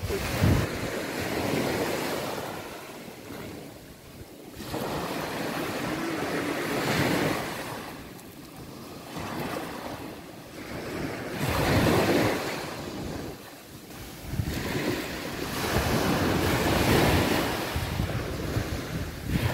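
Small sea waves breaking and washing up a sandy beach, the surf swelling and fading about every five seconds, with wind buffeting the microphone.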